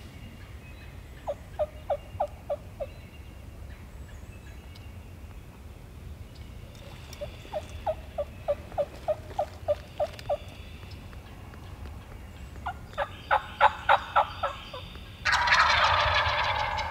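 Three runs of wild turkey yelps, about four short notes a second, the last run loudest. Near the end a turkey gobbler gobbles loudly once.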